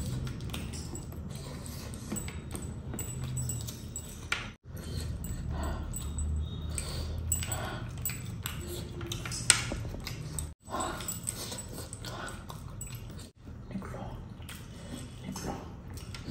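Close-miked eating: chewing and the soft wet sounds of fingers pulling fried fish flesh off the bone, with scattered small clicks.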